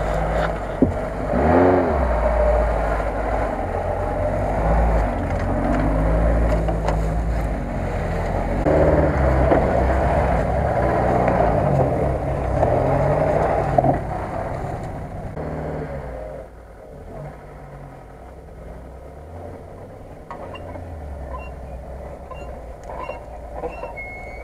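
Off-road 4x4 engine revving hard under load on a steep climb, its pitch rising and falling. About 14 seconds in it drops back to a quieter, lower run.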